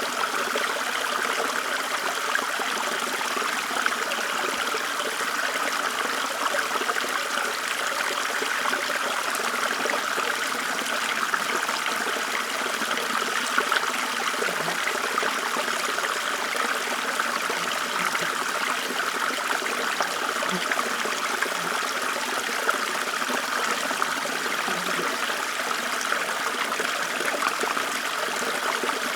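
A small forest stream trickling and babbling steadily.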